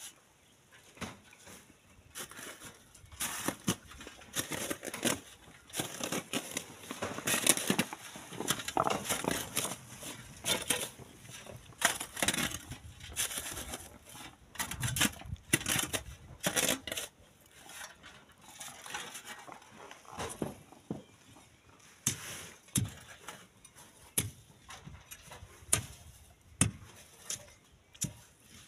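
Hand digging in loose sand and gravel with a long-handled digging tool: irregular scrapes and crunches as the blade bites into the pile, with stones clattering.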